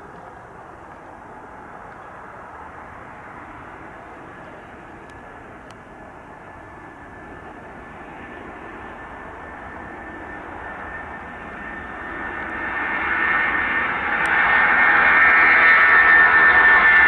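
Boeing 757-200 jet engines at takeoff power on the runway, a rushing roar that grows slowly louder and then swells sharply about three-quarters of the way in as the aircraft rolls closer, with a high steady whine strongest near the end.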